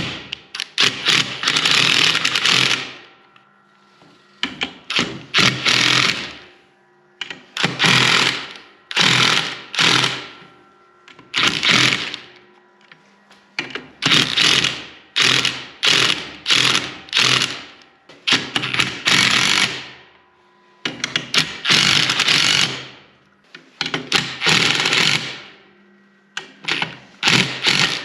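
Power impact wrench rattling in about ten short bursts of a second or two each, with quiet gaps between.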